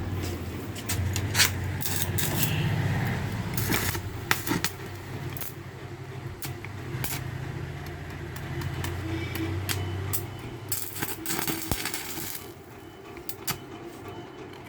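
250 A welding machine running with a steady low hum that stops about twelve and a half seconds in. Scattered clicks, scrapes and a couple of short crackles sound over it.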